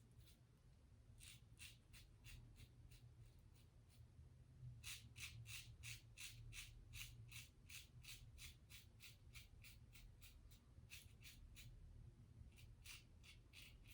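Faint scratching of a safety razor shaving through stubble: a Gillette Tech fat handle fitted with a 3D-printed base plate, taking short quick strokes, about three or four a second through the middle and more spaced out at the start and near the end.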